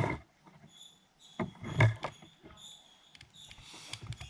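Handling noise from small parts and tools: scattered light clicks, with one louder knock about two seconds in.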